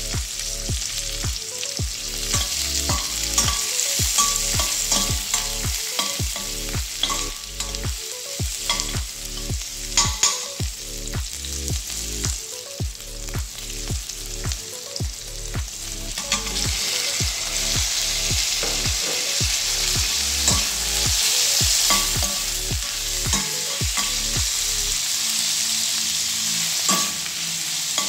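Onions and garlic sizzling as they sauté in oil in a stainless steel pot, with a metal spoon scraping and clinking against the pan as they are stirred.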